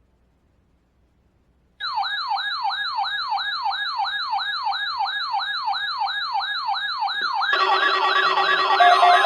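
Electronic siren in a fast yelping sweep, rising and falling about three and a half times a second, cutting in abruptly about two seconds in. A few seconds later steady tones join it and the sound grows louder.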